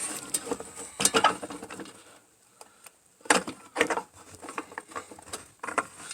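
Irregular taps, clicks and rattles of sheet metal and hand tools being handled, in scattered clusters with a short pause near the middle; no power tool is running.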